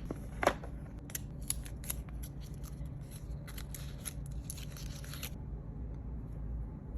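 Watch packaging being handled while the watch case is lifted out: a run of sharp crinkles and clicks for about five seconds, the loudest about half a second in, then only a low steady hum.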